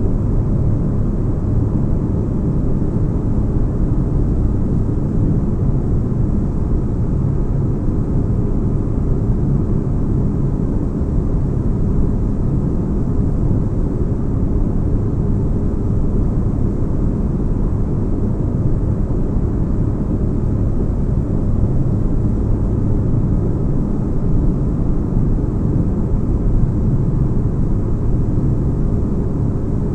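Spaceship-interior sleep ambience: a steady deep rumble, like an engine heard from inside a cabin, with faint even hums and no change or events.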